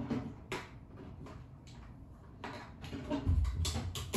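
Household handling noises: scattered light clicks and knocks, then a run of soft, low thuds from about three seconds in.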